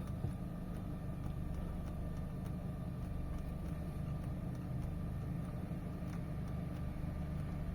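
Peugeot 307 engine idling, a steady low hum heard inside the car's cabin.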